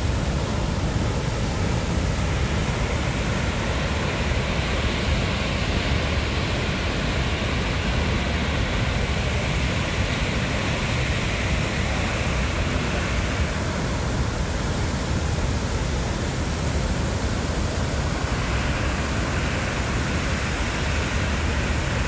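Waterfall: a heavy flow of muddy water pouring over a wide weir and churning in the pool below, a loud, steady rush with a deep low rumble.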